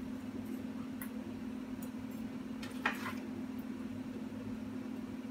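Faint light clicks and ticks of black DT Swiss spokes being slid into the flange holes of a DT Swiss 350 hub and tapping against one another, the clearest about three seconds in. A steady low hum runs underneath.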